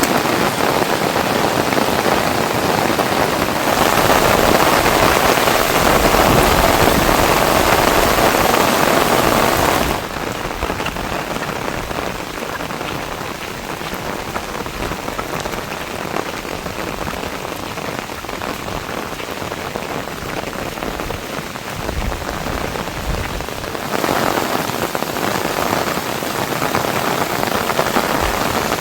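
Heavy rain falling in a steady, dense hiss with no distinct drops standing out. The level jumps up about 4 s in, drops abruptly about 10 s in, and comes back up about 24 s in.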